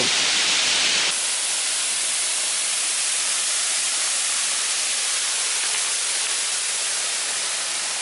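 Steady rushing hiss of a tall waterfall falling onto rock. About a second in the hiss suddenly turns duller and a little quieter, then goes on evenly.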